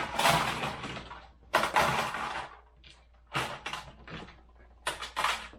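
Plastic Lego parts knocking and rattling as the built pirate ship and its minifigures are handled: four or five short clatters with brief pauses between.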